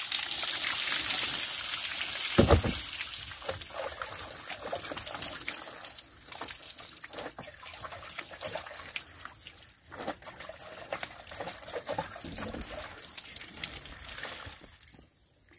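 Water running from a tap and splashing, loudest in the first three seconds, then thinning to trickling and scattered splashes.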